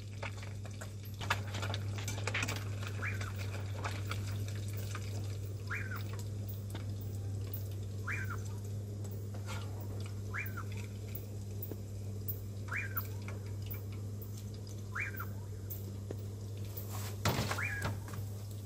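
Fish frying in hot fat, a steady sizzle with scattered crackles. Over it an animal's short call repeats about every two seconds, and there is a brief louder clatter near the end.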